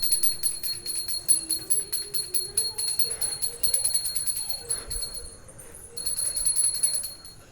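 Bright jingling music: a fast shaker-like ticking over a steady high ringing tone, breaking off briefly about five seconds in, then returning for about a second.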